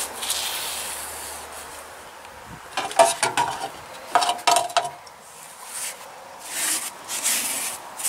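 Paintbrush strokes spreading wood impregnant over wooden boards: repeated swishing rubs, with a cluster of light knocks and clinks in the middle.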